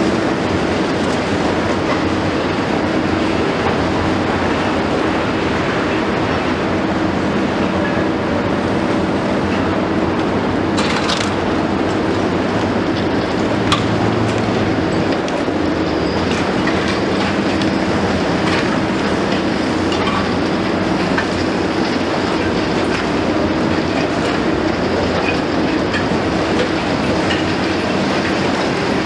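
Liebherr R 954 high-reach demolition excavator working: its six-cylinder diesel engine hums steadily under a constant rattle and crunch of concrete breaking and rubble falling. There is a sharp crack about a third of the way in and another a few seconds later.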